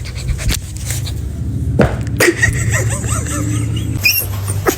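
Puppies giving small squeaks and whimpers, with a few sharp knocks and a steady low hum underneath.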